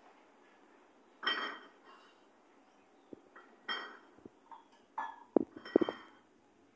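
Scattered clinks and knocks like dishes or metal pots being handled: several separate sharp sounds with a ringing tone, coming every second or so, the last few near the end the loudest.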